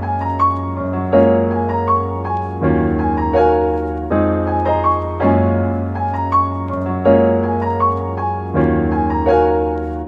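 Background music: a piano playing a melody of struck notes over held low bass notes.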